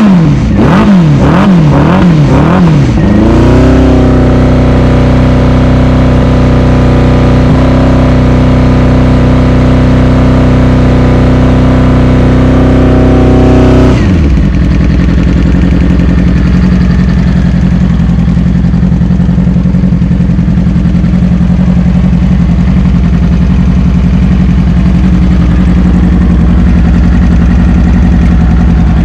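Freshly rebuilt 2007 Yamaha R6 inline-four engine blipped in quick revs for about three seconds, then held at a steady raised rpm for about ten seconds before dropping suddenly back to a steady idle.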